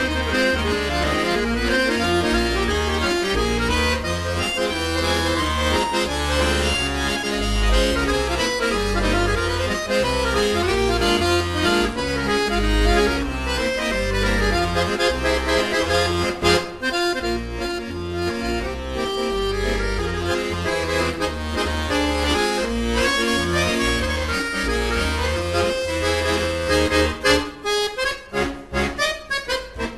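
Accordion music with held chords over a bass line. Near the end it breaks into short, choppy chords.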